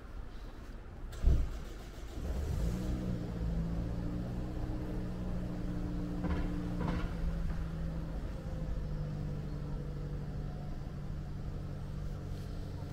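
A loud thump about a second in, then a car engine starts and runs steadily, its pitch shifting slightly partway through.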